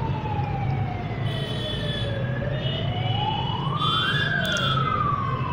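A siren wailing, its pitch sliding slowly down and then back up before starting to fall again, over a steady low hum.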